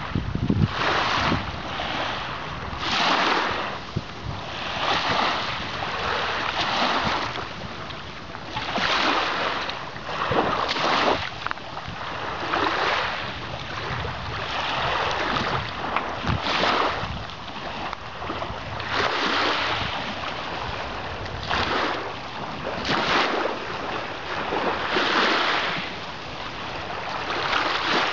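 Small waves washing onto the beach at the camera's feet, a rushing noise that swells and falls back every couple of seconds.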